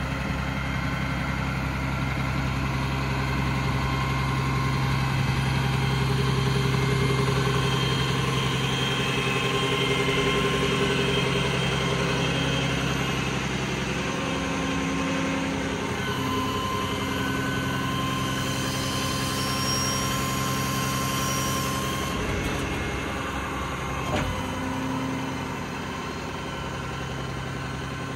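Ram 5500's Cummins 6.7-litre inline-six diesel running steadily to power the truck's hydraulic crane while the boom is moved. The engine and hydraulic tone shifts a couple of times as crane functions start and stop, and there is a short knock about 24 seconds in.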